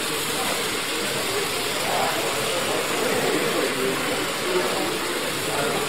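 Steady hubbub of many people talking at once, with no single voice standing out.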